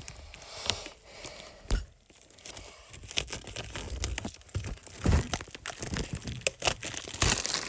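Clear plastic shrink-wrap on a retail box crinkling and tearing as it is pulled open by hand: a dense run of irregular crackles and rustles, busiest and loudest near the end.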